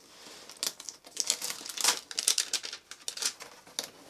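Cardboard box and its paper wrapping being opened by hand, with a run of irregular crinkling and rustling crackles.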